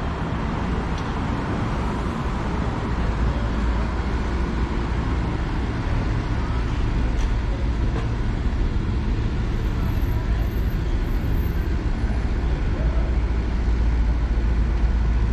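Steady city traffic noise with a deep low rumble that grows stronger about three seconds in.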